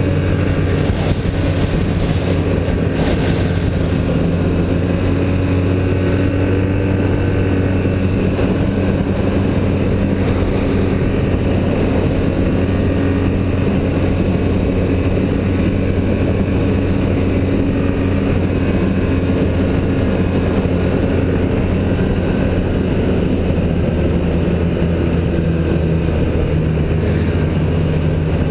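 Snowmobile engine running steadily at cruising speed, heard up close from the machine being ridden, its pitch holding even throughout.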